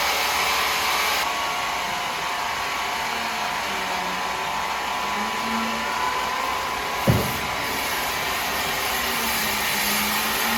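Steady rushing noise of woodworking machinery running, with a single sharp knock about seven seconds in.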